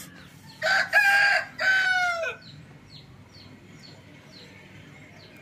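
A rooster crows once, a long call in three parts that ends in a falling glide. Faint small-bird chirps repeat about twice a second after it.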